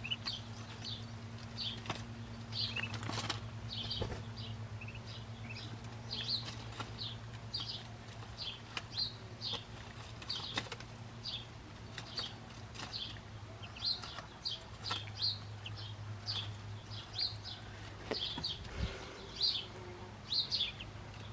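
Muscovy ducklings peeping: short, high, slightly falling peeps, about two a second, over a steady low hum.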